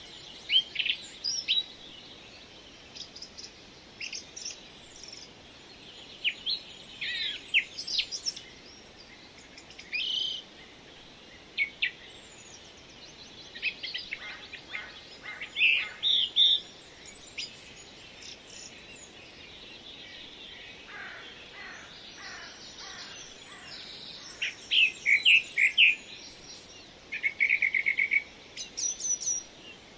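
Birds chirping and singing: short, high chirps and phrases scattered throughout, with a quick trill near the end, over a soft steady hiss.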